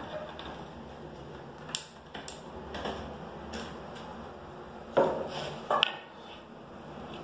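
Light clicks and knocks from handling particleboard furniture panels and a metal screw by hand, a few scattered through the first half, with two louder knocks about five and six seconds in. No power tool runs.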